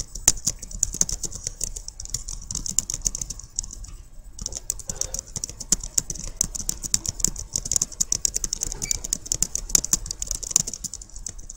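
Typing on a computer keyboard: a fast, steady run of keystrokes, with a short pause about four seconds in.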